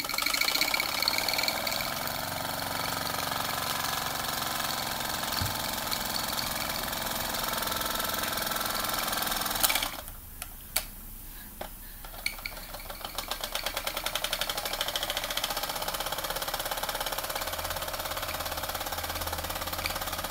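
Mamod TE1A toy steam traction engine's single oscillating cylinder running fast, with a steady rapid chuff and hiss of exhaust steam. About ten seconds in it cuts off suddenly and a few clicks follow. Then it starts again, its chuffs picking up speed from separate beats to a fast, even run.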